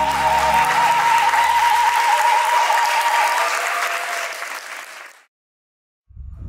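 Audience applauding over the last held notes of the music, fading out to silence about five seconds in. Different music starts near the end.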